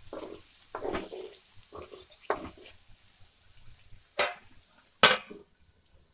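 A metal spoon stirring and scraping brinjal slices frying in an aluminium kadai, with a faint sizzle and several sharp metal clanks. The loudest clank, about five seconds in, is the perforated aluminium lid being set on the pan, after which it goes much quieter.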